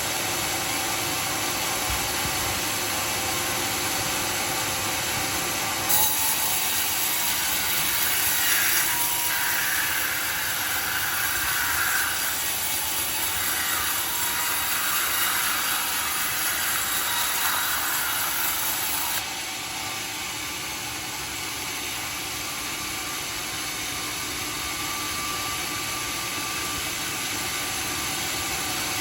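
Homemade sawmill running, its blade cutting through dry teak with a loud hissing rasp from about six seconds in; at about nineteen seconds the cutting sound stops and the machine runs on steadily.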